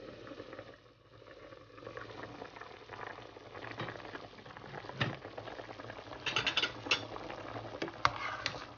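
Pot of pork sinigang soup boiling hard with the lid off, bubbling steadily, while a ladle stirs it and knocks against the stainless steel pot several times in the second half.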